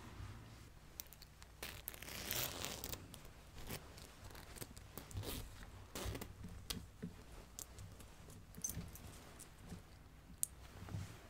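Clothing fabric rustling and rubbing close to the microphone as a jacket is taken off, in irregular swishes with scattered small clicks.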